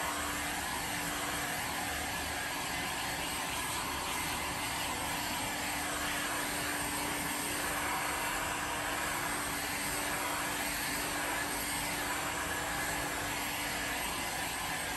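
Corded heat gun blowing steadily, a constant rushing of air with a faint low motor hum, drying freshly applied wood stain.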